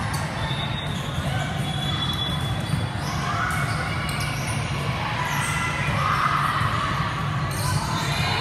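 Echoing sports-hall din of volleyballs being struck and bouncing on several courts, over a steady low hum and the chatter of players and spectators.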